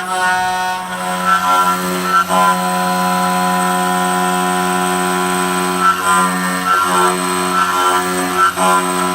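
CNC wood router spindle running with a steady whine, its pitch dipping briefly and recovering several times.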